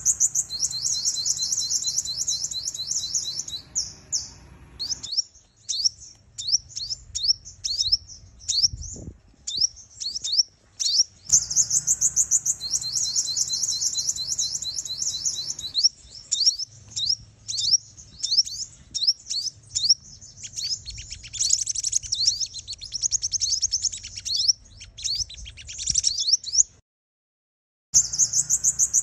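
Female sunbird calls used as a trapping lure: fast, high twittering trills alternating with runs of sharp, quick chips. There is a brief complete silence near the end before the trills start again.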